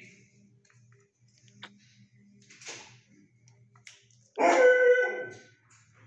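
A dog gives one loud, drawn-out howling bark lasting about a second, a little past the middle; before it, a faint sniff near the wire.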